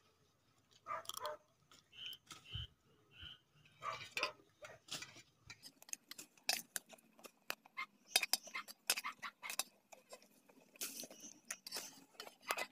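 Metal spoon clinking and scraping on a stainless steel plate, many quick sharp clicks that come thickest in the second half. A few short animal calls sound in the first three seconds.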